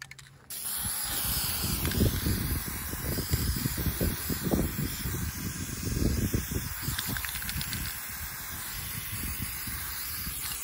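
Aerosol spray-paint can hissing in a continuous spray as it coats a target plate in white paint. The spray starts about half a second in.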